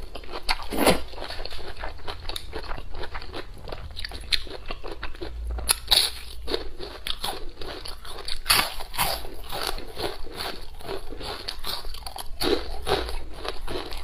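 Close-miked eating: a person biting and chewing, with many quick, crisp crunches in an irregular run. The food is leafy greens (Malabar spinach) and crispy fried fish.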